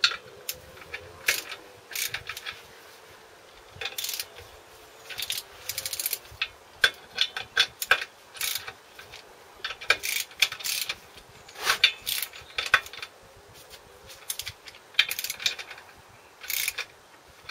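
Ratchet clicking and metal clinking in irregular quick clusters as the bolts of a clutch pressure plate are run in onto the flywheel.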